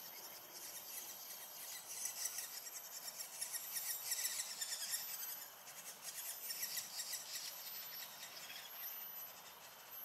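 High, rapid buzzing trills, strongest in a spell from about two to five seconds in and again briefly around seven seconds, over a steady high whine.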